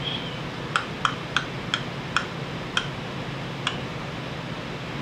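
Seven short tongue clicks, close together at first and then spreading out, over a steady low room hum.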